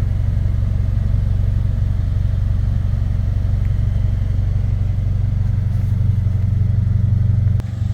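2023 Subaru BRZ's 2.4-litre flat-four idling steadily through an aftermarket exhaust, a low, even exhaust note. It dips briefly with a click near the end.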